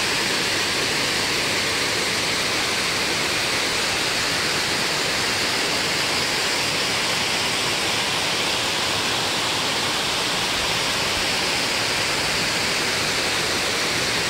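Steady, unbroken rush of a waterfall pouring over rock ledges into a shallow rocky creek.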